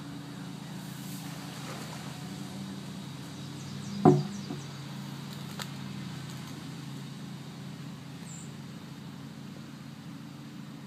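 A steady low mechanical hum, with one loud sharp knock about four seconds in.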